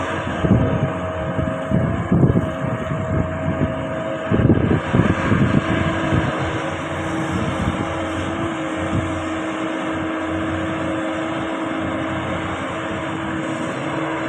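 Hydraulic excavator's diesel engine running steadily with a constant whine over it, and a few louder uneven surges in the first five seconds as the machine works.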